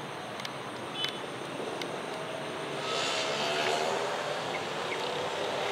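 An engine passing by, growing louder about halfway through, with a droning pitch that slowly glides.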